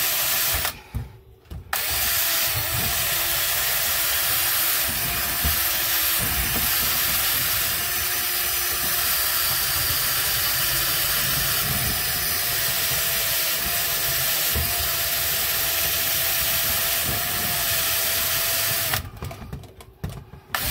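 Cordless drill turning an adjustable circle cutter through galvanized sheet-metal ductwork: a steady motor tone with the cutter scraping the metal. It stops briefly about a second in, then runs on until it cuts off near the end.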